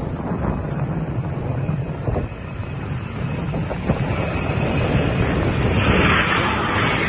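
Wind buffeting the microphone over the distant roar of an Embraer KC-390's twin turbofan jet engines at takeoff power. The engine roar grows louder from about six seconds in as the aircraft lifts off.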